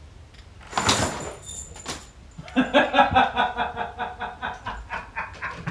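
A roller blind pulled down with a quick whirring swish and a click, then a man laughing, a steady run of 'ha-ha-ha' for about three seconds.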